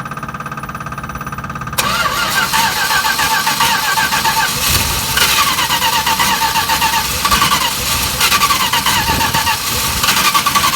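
A vehicle engine that has been refusing to start, being cranked: the starter turns it over with even pulsing at first, then about two seconds in it gets much louder and runs on unevenly. The mechanic later says it ran out of fuel.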